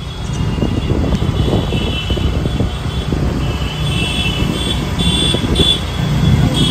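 Riding on a moving scooter: wind buffeting the microphone over the scooter's engine. A thin high whine comes and goes several times.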